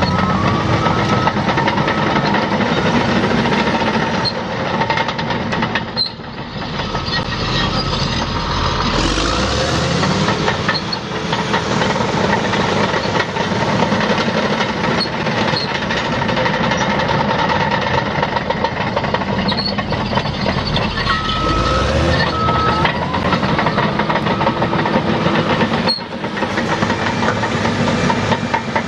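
Caterpillar D6R LGP crawler dozer running and travelling on its steel tracks: a steady diesel engine with clanking, squeaking track noise. A series of short beeps from its reversing alarm sounds right at the start and again about two-thirds of the way through.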